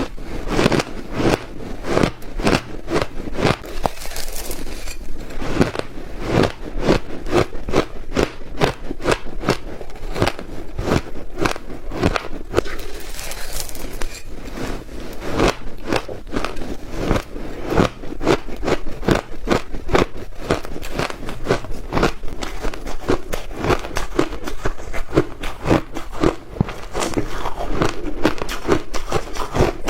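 Close-miked crunching of crushed shaved ice being bitten and chewed, a rapid run of sharp crunches several times a second.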